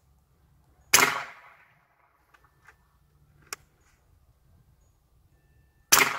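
Two shots from a Hatsan Hercules Bully .45-calibre big-bore air rifle, about five seconds apart, each a sharp crack with a short echoing tail. A single small click comes between them.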